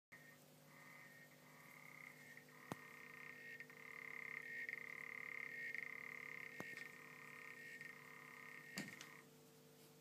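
African clawed frog calling: a continuous buzzing trill with a lower part that pulses on and off in a steady rhythm, stopping abruptly about nine seconds in. Three faint sharp clicks fall during the call.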